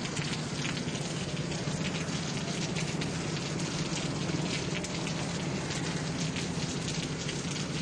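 Steady rain falling, with the fine patter of many drops hitting surfaces.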